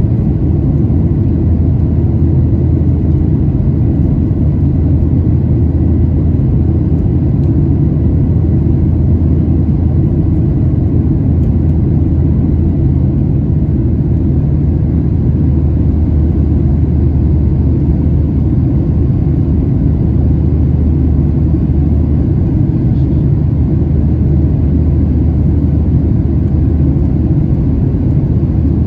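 Steady engine and airflow rumble inside the cabin of a Boeing 737-800 climbing out after takeoff, from its CFM56-7B turbofans, with a faint steady high whine over it.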